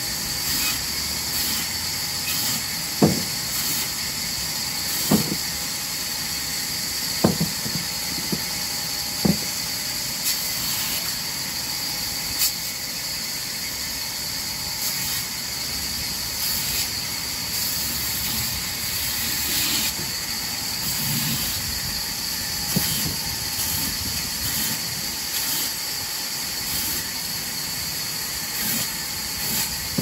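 Vertical band saw running steadily with a high whine and hiss as it cuts branch wood into short chunks. A few sharp wooden knocks come about every two seconds in the first ten seconds, as pieces are set down or dropped on the table.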